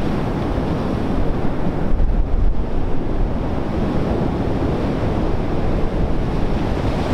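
Heavy surf breaking and rumbling in a steady wash, with gusts of wind buffeting the microphone.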